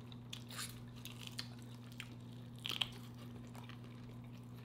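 Close-miked eating: biting and chewing crunchy battered deep-fried ribs, a scatter of small crisp crackles with the sharpest about two and a half seconds in.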